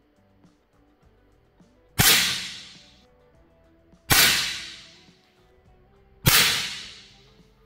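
Three shots from a 9mm Flobert Manu-Arm smoothbore rifle firing round-ball cartridges, about two seconds apart. Each is a sharp crack that dies away over about a second.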